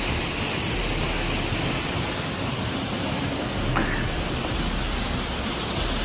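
Steady rush of a waterfall: water pouring and streaming off an icy rock overhang.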